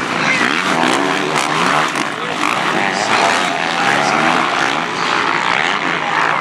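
Motocross dirt bike engines revving hard, several at once, their pitch rising and falling over one another as the riders work the throttle around the track.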